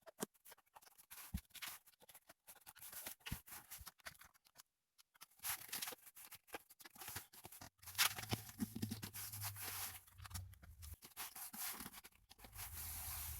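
Faint scattered clicks and scratchy rubbing as a rubber door molding is pressed by hand back onto a car's front door frame.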